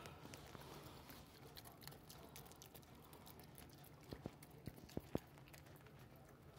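Faint, quick clicks and smacks of a raccoon eating from a paper plate held in a hand, with a few sharper clicks between about four and five seconds in.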